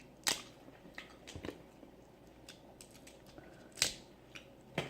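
Sharp clicks and smacks of someone eating snow crab and crawfish, a handful spread over a few seconds, the loudest about a third of a second in and just before four seconds in.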